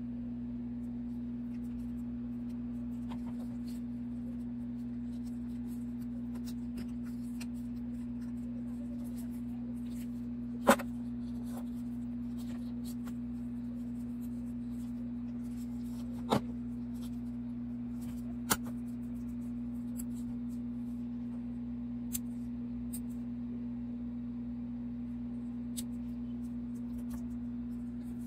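A steady low hum runs throughout, with sharp clicks on top: three louder ones about eleven, sixteen and eighteen seconds in, and a few fainter ticks.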